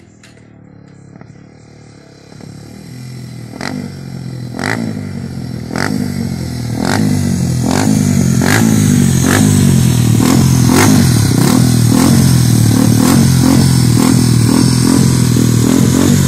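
Single-cylinder four-stroke engine of a 1999 Honda Titan 125 bored out to 137 cc, with a raised-compression ported head, hot cam, sport carburettor and small exhaust. It runs low at first, then is blipped again and again, about once a second, each rev dropping straight back. It grows louder through the first half.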